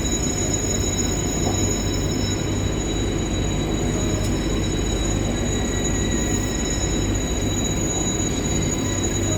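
Indian Railways WAG-9 electric locomotive running, a steady rumble with thin, steady high-pitched whines over it.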